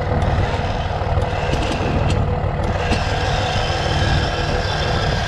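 Small portable winch starting up and running steadily, winding in its cable to drag a pickup truck up a trailer deck, over a low engine rumble.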